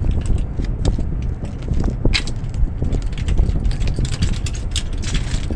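Hand crank of a grain trailer's roll tarp being worked: irregular metallic clicks and rattles over a steady low rumble.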